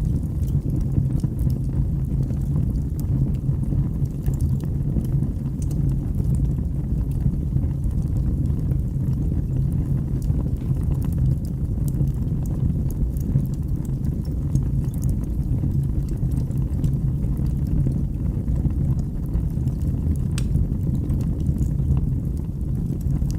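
Wood fire burning in a fireplace: a steady low rumble of flames with scattered small crackles.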